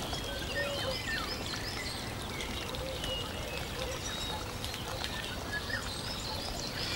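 Many small birds chirping and twittering over a steady hiss like running water, a nature-ambience background.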